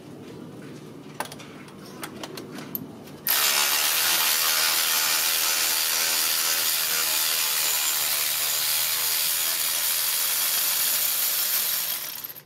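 A compressed-air shop tool runs steadily for about eight seconds, a loud hiss with a faint motor tone in it. It cuts in abruptly about three seconds in, after a few light tool clicks, and stops near the end.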